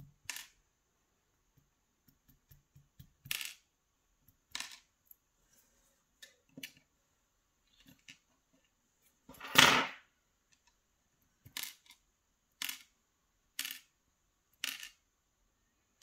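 Small brass lock pins and the plug of a Sargent pin-tumbler cylinder clicking and clinking against metal tweezers and a plastic pin tray as the lock is taken apart, about a dozen separate sharp clicks. The loudest is a short clatter near the middle, and there are several clicks about a second apart near the end.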